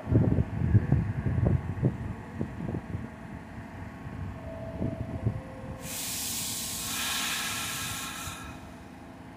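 New York City subway train of R46 cars clattering as its wheels knock over rail joints, then a loud hiss of released compressed air from about the middle for some two and a half seconds before it cuts off.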